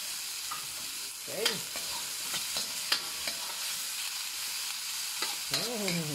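Onion, tomatoes and pork sautéing in hot oil in a wok: a steady sizzle, with a spatula stirring and clicking against the pan every second or so.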